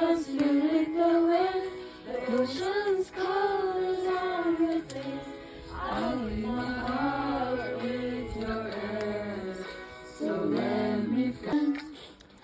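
Background music: a song with a sung melody over steady accompaniment.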